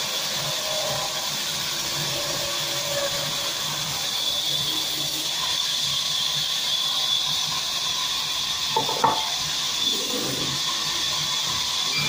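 Sawmill band saw running and cutting through a block of timber: a steady hissing noise, with a couple of sharp knocks about nine seconds in.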